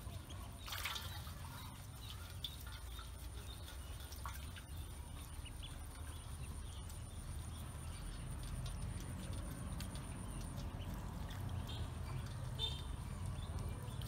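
Pekin ducklings paddling and dabbling in a shallow metal basin of water: soft, scattered splashes and drips.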